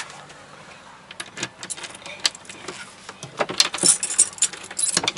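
Keys jangling with a run of small metal clicks, growing busier after about three seconds, as the lock on a sailboat's companionway hatch is undone.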